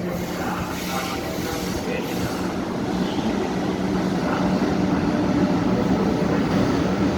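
Container train hauled by an EF66 100-series electric locomotive passing: a steady rolling rumble with a low hum, growing a little louder toward the end.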